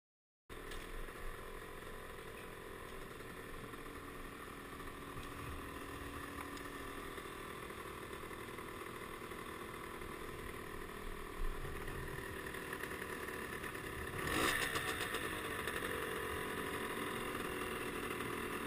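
50 cc motorcycle engine running steadily close to the microphone, cutting in abruptly about half a second in, with a brief louder surge about three quarters of the way through.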